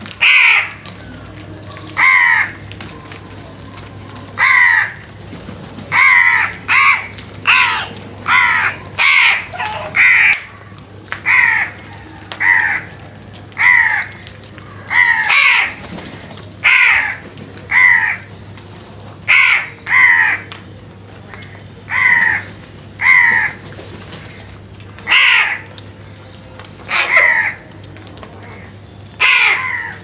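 A flock of house crows cawing over and over: about two dozen short caws at irregular intervals, sometimes two or three in quick succession.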